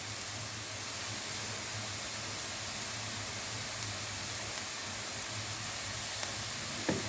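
Diced onions sizzling gently in oil in a nonstick frying pan, a steady hiss over a low hum, with a faint click near the end.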